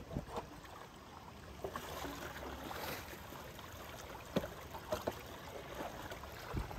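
Shallow floodwater pouring and sloshing into a storm drain as its cover is levered open with a pole, with wading splashes and a few sharp knocks about four to five seconds in.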